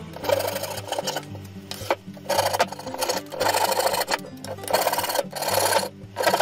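Hand file scraping back and forth along the edge of a curved wooden handle, about six strokes of half a second each, shaping and smoothing the wood. Background music runs underneath.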